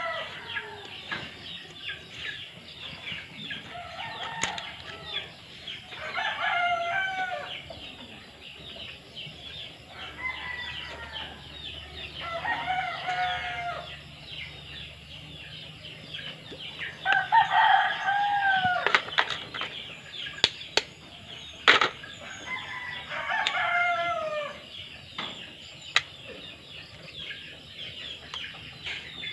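Roosters crowing again and again, a crow every few seconds, some overlapping. A few sharp taps come in the second half.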